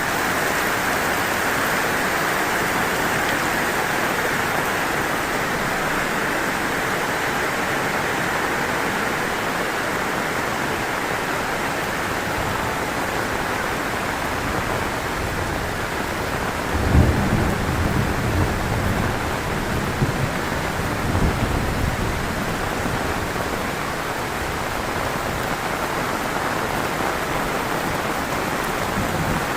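Heavy rain falling steadily, a dense even hiss. Just past the middle, several seconds of deep rumbling with sharp peaks rise under it, then fade.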